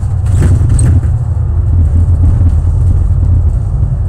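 Double-decker bus under way, heard from inside on the upper deck: a loud, steady, low drone of engine and road noise, with a few light rattles in the first second.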